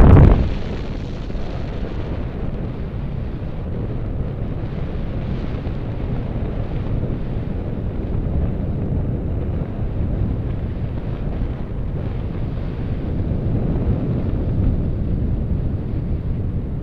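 Airflow from paraglider flight rumbling steadily over an action camera's microphone, with a louder gust right at the start.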